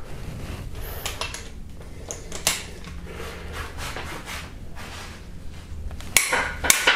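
Hand socket wrench on a long extension turning a cylinder head bolt out of a Hyundai/Kia 2.4 GDI engine: a steady low rubbing as the bolt turns, with a few metal clicks and a quick cluster of sharper clinks near the end.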